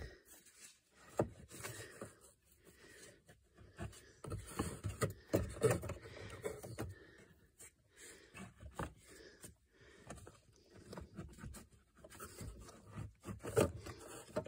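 Handling noise of a cabin air filter being forced into its plastic housing behind the glove box: irregular scraping, rubbing and light knocking of the pleated filter frame against plastic, with louder bursts of effort about five seconds in and near the end.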